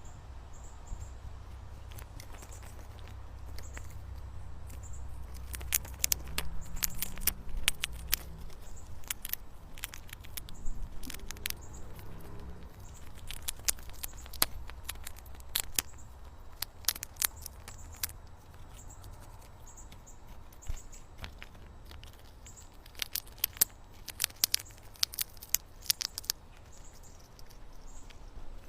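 Squirrel chirping in runs of quick, short, sharp chirps that come in bursts separated by pauses, over a steady low rumble.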